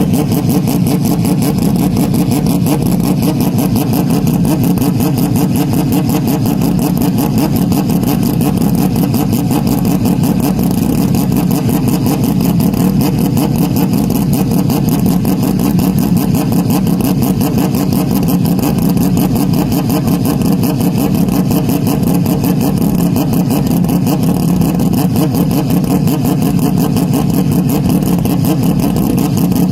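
Historic Group C race car engine running steadily, loud and distorted, at a constant level with no pass-by rise and fall.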